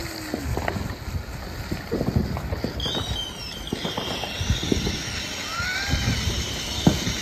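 Ground fountain firework spraying sparks on pavement, crackling with irregular sharp pops.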